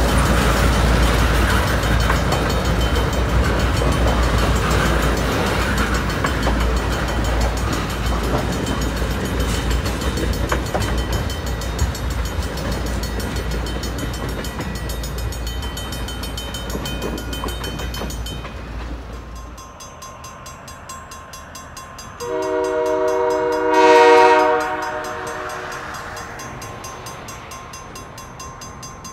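A train of propane tank cars rolling past a level crossing, a steady rumble with wheel noise. After a cut, a diesel locomotive's multi-note horn sounds, loudest briefly about two-thirds of the way in, then fading, with another blast starting at the very end.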